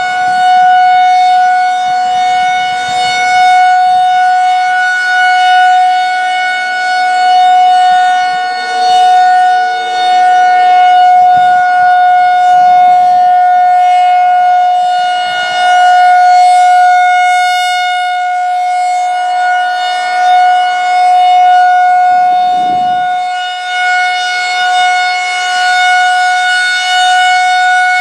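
Federal Signal 2001-130 rotating outdoor warning siren sounding its steady alert tone during a monthly test. The pitch holds steady, while the loudness swells and fades every few seconds as the rotating head sweeps past.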